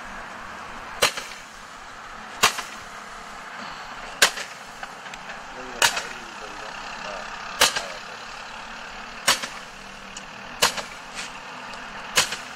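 Consumer roman candle firing single stars: eight sharp pops at an even pace of about one every one and a half to two seconds, each followed by a short echo.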